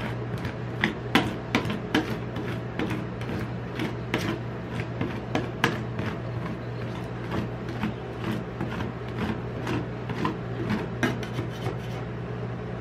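Metal spatula scraping and tapping on the frozen steel plate of a rolled ice cream pan while the ice cream mixture is spread and smoothed, giving irregular sharp clicks and scrapes over a steady low hum.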